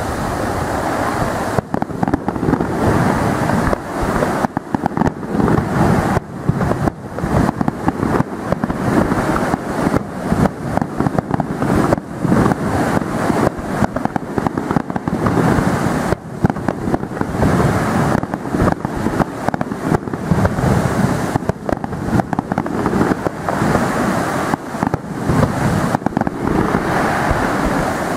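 Aerial fireworks display: a rapid, near-continuous barrage of shell bursts and bangs, starting about a second and a half in, over a steady rumble.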